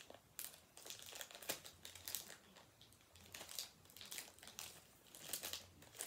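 Faint, irregular crinkling of a foil Pokémon booster-pack wrapper being handled and worked open.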